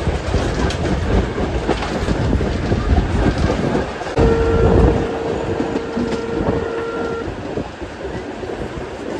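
Steam-hauled passenger train running along the track, wheels clicking over the rail joints. About four seconds in, a single steady whistle note sounds for about three seconds.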